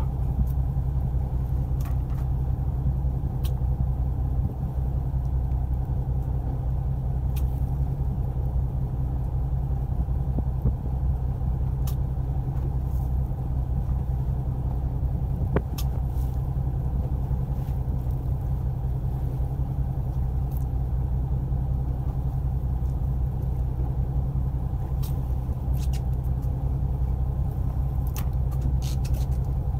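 A fishing boat's motor running steadily, a low, even hum, with scattered light clicks over it.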